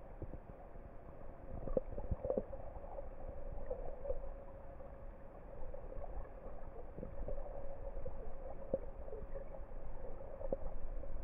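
Underwater ambience picked up by a submerged camera: a low rumble with a steady hum and scattered clicks and crackles.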